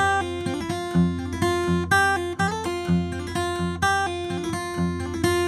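Solo acoustic guitar playing a steady, repeating pattern of picked notes over ringing chords, recorded close with a Slate Digital ML2 small-diaphragm condenser microphone.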